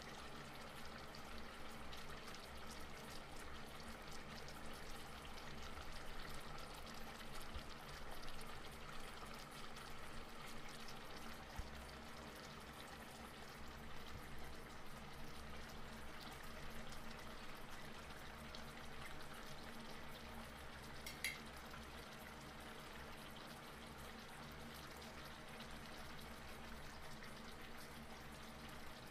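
Rice porridge simmering in a steel pot, a faint steady bubbling with small pops, over a low steady hum. One short sharp click sounds about two-thirds of the way through.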